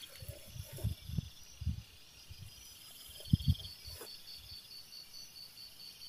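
Night insects chirping in a steady, rapid high pulse, with a second buzzing trill joining in around the middle. Soft low thumps sound through it, two stronger ones close together about three and a half seconds in.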